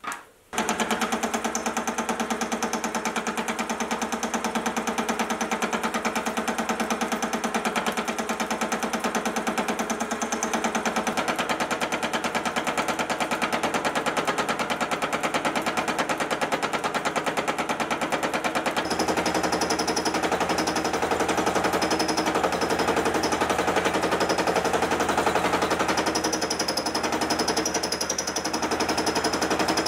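A fly cutter on a mini vertical mill taking a facing cut across a mild steel bar: a rapid, even chattering of the single cutting tool against the steel over the steady run of the mill, starting about half a second in.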